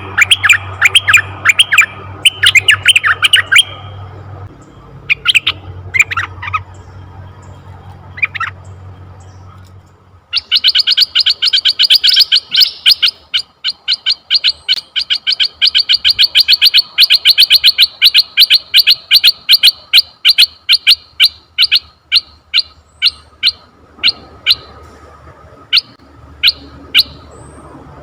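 Asian red-eyed bulbul calling. Fast bursts of short chattering notes come in the first few seconds, then a few scattered notes. About ten seconds in, a long, fast run of several notes a second begins and thins out to scattered single notes near the end.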